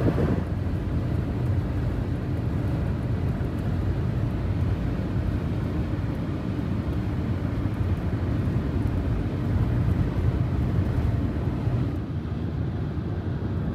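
Steady low rumble of road and tyre noise from a 2011 Toyota Prius driving along while towing a trailer.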